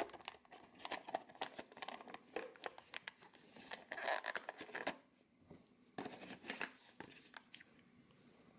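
Cardboard and clear plastic toy packaging handled in the hands: a run of light crinkles, clicks and taps, pausing briefly about five seconds in and picking up again before going quiet near the end.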